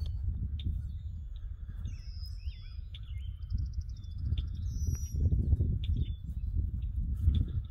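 Songbirds chirping and whistling, with a rapid trill about three and a half seconds in, over a louder low rumble of wind and footsteps through grass that swells a little past the middle.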